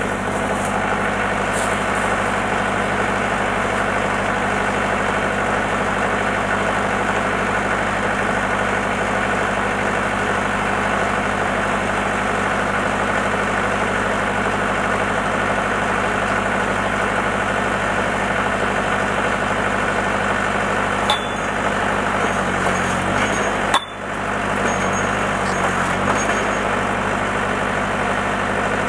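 Tractor engine running steadily at raised revs to supply pressure to a hydraulic post driver. Near the end come two short, sharp knocks a few seconds apart, and the engine note wavers between them.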